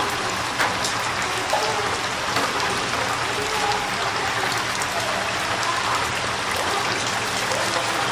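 Chicken karaage deep-frying in commercial stainless-steel fryers, the oil sizzling and bubbling steadily, with now and then a sharp click of metal tongs and a skimmer working the pieces.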